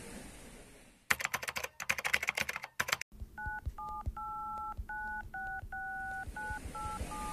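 About two seconds of rapid keyboard-typing clicks. Then a string of telephone keypad tones: paired beeps, each pair at a different pitch, some short and some held longer.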